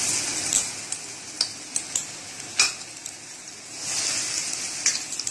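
Onion and gram-flour pakora batter deep-frying in hot oil, sizzling. The sizzle is strongest near the start and swells again about four seconds in, with a few sharp clicks in between.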